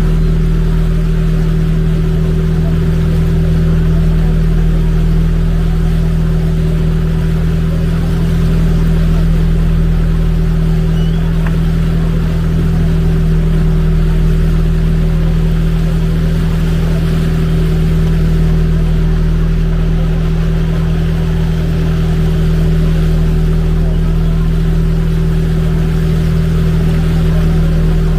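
Motorized bangka's engine running at a steady, unchanging speed, a low hum with an even hiss of water and wind above it.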